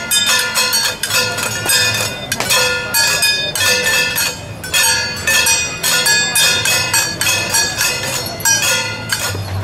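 Rhythmic metallic percussion: a fast, steady run of bell-like strikes, two to three a second, each with a ringing tone.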